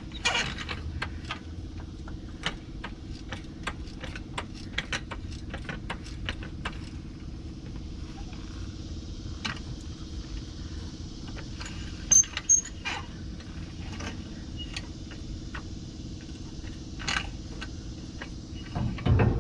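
Metal hand tools and steel suspension parts clinking and tapping as they are handled: a run of quick light clicks for a few seconds, then a few sharper knocks, over a steady low hum.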